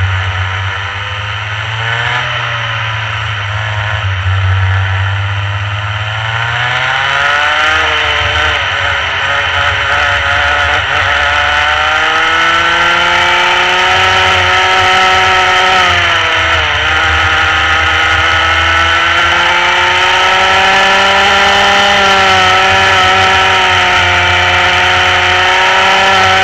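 Rotax Mini kart's 125cc two-stroke engine at racing revs. The pitch sits lower for the first few seconds, climbs steadily for about six seconds, then holds high. It drops sharply about 16 seconds in and climbs again, with a smaller dip near the end.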